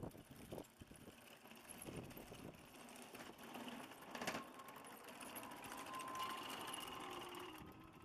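Electric drive motors and gearboxes of a scratch-built 1:6 scale remote-control M113 model whining as it drives on its tracks, the pitch shifting slightly in the second half. A single sharp knock comes about four seconds in.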